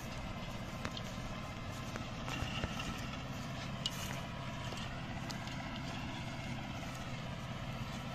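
New Holland TD590 tractor's diesel engine running steadily under load while plowing, with a few sharp knocks and rattles.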